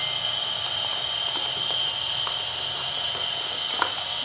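A steady high-pitched hiss with a constant thin whine, and a few light clicks from eating off a plate, the clearest near the end.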